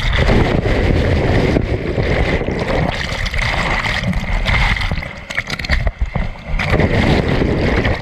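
Whitewater rapids churning and splashing over a GoPro action camera that is dunked into and through the water. The heavy churning eases briefly about five seconds in and comes back strongly near the end.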